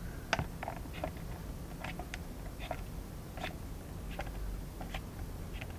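Small screwdriver working a tight screw out of a soldering station's case: irregular light clicks and scrapes of the bit in the screw head.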